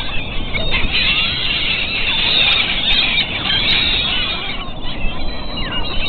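A dense flock of gulls calling at once, many overlapping high squealing cries, over a steady low rumble.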